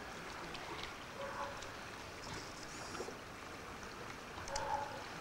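Steady rushing of a small river flowing over stones by a culvert, with a couple of faint short mid-pitched sounds about a second in and near the end.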